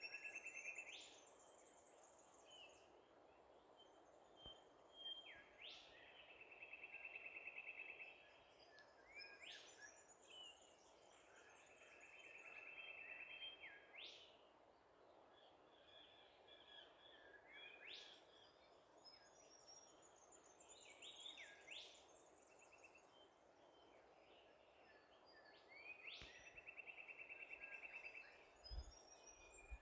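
Wild birds calling faintly over a quiet background hiss. The calls come as repeated phrases of a buzzy trill and quick upward-sweeping whistles, with short high chirps between, every few seconds.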